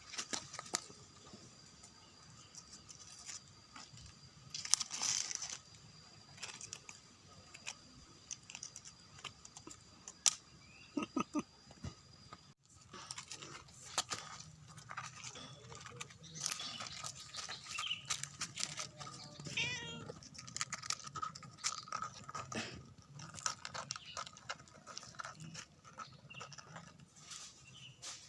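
A domestic cat meowing a couple of times, amid scattered small clicks and rustles.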